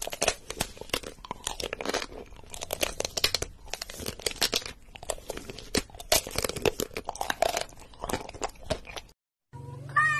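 Close-up crunching and chewing of food, a dense run of crisp crackles that stops about nine seconds in. Right at the end a cat begins to meow over a low hum.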